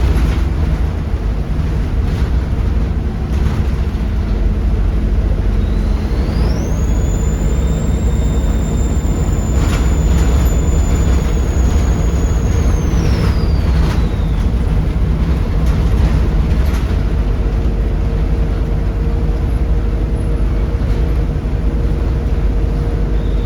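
Volvo D7C 7.3-litre diesel engine of a Volvo B7RLE bus running under load, with a steady low rumble throughout. About six seconds in, the turbocharger whistle rises to a high, steady pitch, holds for several seconds, then falls away; it begins to rise again near the end.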